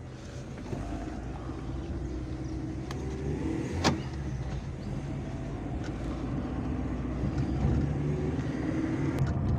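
Volkswagen Fox driving slowly, its engine running steadily and growing slightly louder, with one sharp click about four seconds in. The car is being driven to bring out a noise from the driver's-side front wheel, which the driver likens to a brake pad scraping on the disc.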